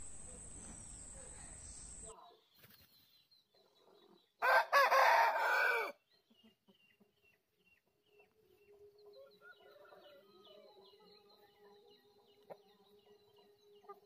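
Asil rooster crowing once, a single crow of about a second and a half about four and a half seconds in.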